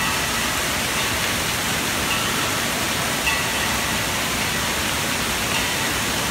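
Steady rushing hiss of spraying and falling water from the splash-pad jets and the water play structure.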